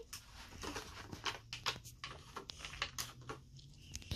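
Faint scattered clicks and light taps of small objects and plastic being handled, over a low steady hum.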